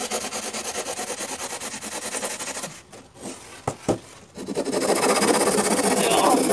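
Hand-held hacksaw blade sawing through a styrofoam box with fast back-and-forth strokes. It pauses briefly near the middle, then resumes louder from about two-thirds of the way in.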